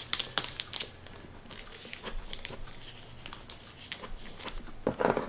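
Packaging being handled by hand: irregular crinkling and rustling as the planner is worked out of its wrapping, with louder rustles at the start and again near the end.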